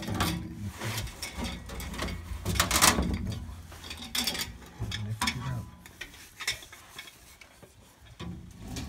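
Irregular clanks, clicks and rubbing from hands and tools working in a blower cabinet, with the loudest knock a little under three seconds in.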